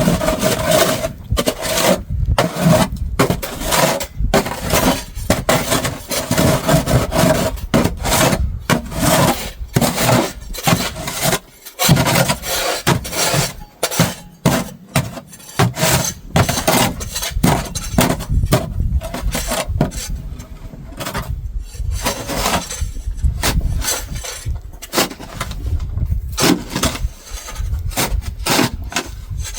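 Repeated irregular crunching and scraping strokes in snow, roughly one to three a second, loud and steady in pace throughout.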